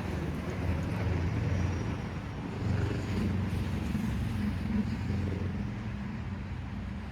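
Low engine rumble of a passing motor, growing louder about three seconds in and easing off near the end.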